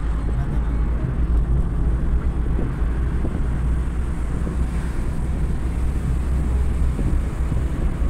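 Steady low rumble of a car driving along a road, heard inside the cabin: engine and tyre noise.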